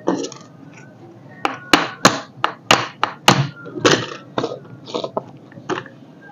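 A quick, irregular run of sharp knocks and taps, about a dozen, as the angle grinder's hard plastic and metal housing parts are knocked back together around the freshly rewound armature during reassembly.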